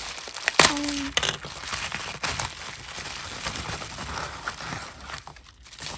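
Bubble-wrap mailer and plastic packaging crinkling and rustling as it is handled and opened, with a sharp click about half a second in.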